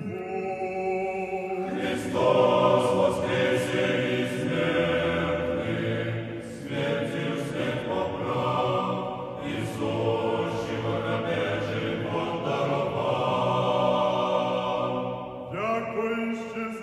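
Choir singing slow a cappella chant in long held chords. A thinner chord opens, and the full choir comes in about two seconds in. The singing thins out near the end.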